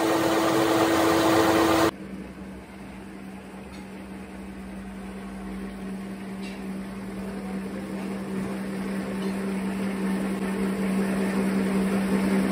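Metal lathe running, spinning a steel pin, with a steady mechanical hum. About two seconds in the sound changes abruptly to a lower steady hum, which grows slowly louder toward the end.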